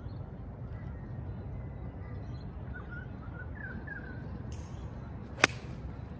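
A 7-iron striking a golf ball off the fairway: one sharp click about five and a half seconds in, a strike the golfer says he didn't catch well. Birds chirp faintly before it over a steady outdoor rumble.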